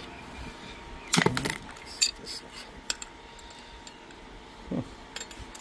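Steel internal parts of a cut-open scroll compressor clinking and knocking against each other and the shell as they are lifted out by hand. There is a quick cluster of clinks a little over a second in, then a few single sharp clicks.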